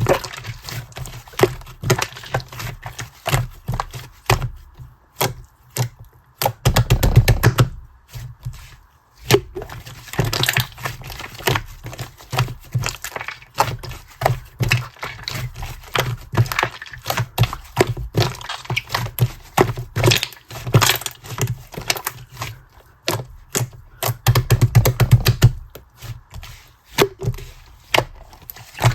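Clear slime being coiled and folded by hand, giving a continuous run of sticky clicks and crackling pops, with louder, denser flurries about seven seconds in and again about twenty-five seconds in.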